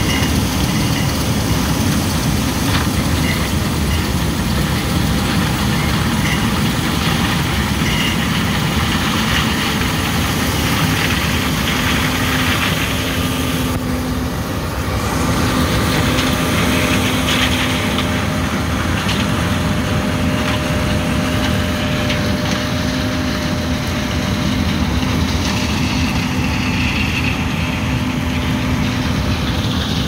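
A John Deere S780 combine's diesel engine and threshing machinery running steadily as it harvests corn: a dense, even drone with a constant hum under it. Part of the way through it is heard from a pickup driving past, with a short dip in the sound about halfway.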